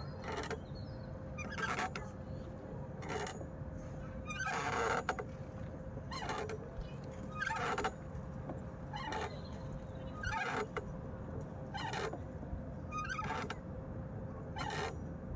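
A swing creaking rhythmically as it sways, one squeak about every second and a half, under a steady faint hum.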